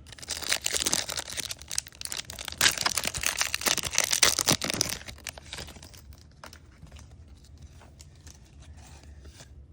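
Packaging of a Bowman Mega Box of baseball cards being torn open and crinkled, loud and dense for about five seconds, then dying down to light crinkles and small clicks as the packs are handled.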